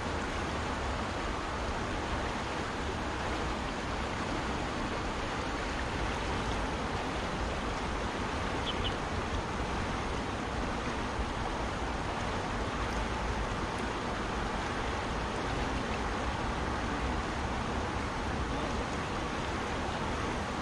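Fast-flowing river water rushing steadily, an even noise with no breaks.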